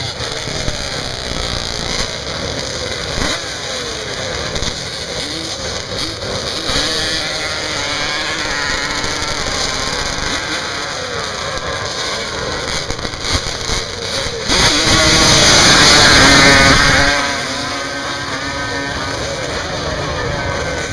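Drag-racing quad (ATV) engines revving and pulling away up the sand hill, with one engine going to full throttle in a much louder burst of about three seconds near the end, its pitch climbing as it accelerates.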